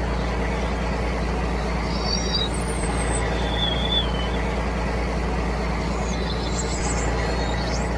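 Tractor engine running steadily at an even pitch. A few faint, short, high chirps come through a couple of seconds in and again near the end.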